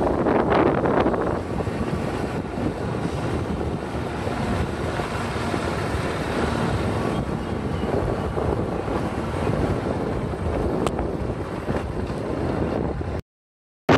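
Wind buffeting the microphone over the running engine and road noise of a motorcycle being ridden at a steady pace. The sound drops out completely for under a second near the end.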